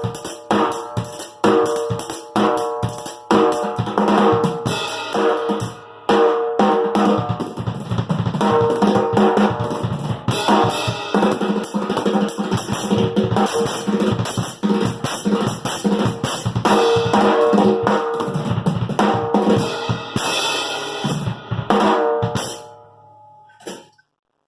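Drum kit played in a busy, steady rhythm of bass drum, snare and cymbal hits, fading out and stopping near the end.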